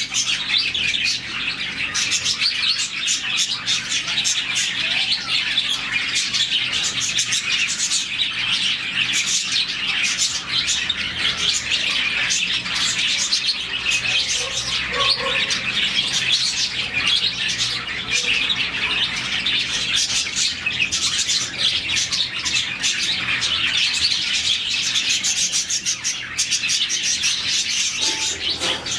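A colony of about forty budgerigars chirping and chattering all at once, a dense, unbroken twitter of many overlapping high voices.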